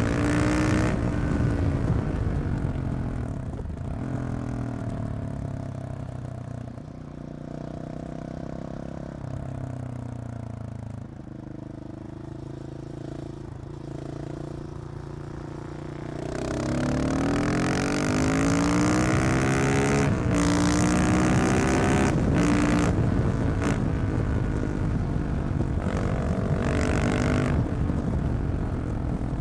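KTM 690 SMC R's single-cylinder engine through a decatted Leovince exhaust while riding. The revs fall over the first few seconds and the engine runs lower and quieter for about ten seconds, then it accelerates hard about halfway through and pulls on loudly, its pitch stepping with gear changes.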